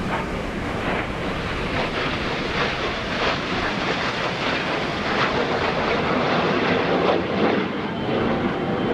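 Canadair CT-114 Tutor jets, each with a single turbojet, passing overhead: a steady rushing jet noise that builds through the middle and is loudest about seven seconds in.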